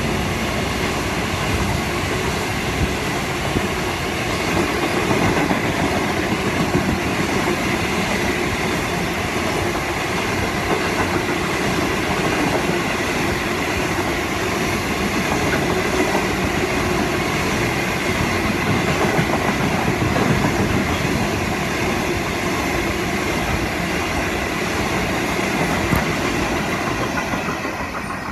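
Freight train's tank wagons rolling past close by: a steady rumble and clatter of steel wheels on the rails, with a faint high steady whine. The sound fades in the last second as the final wagon goes by.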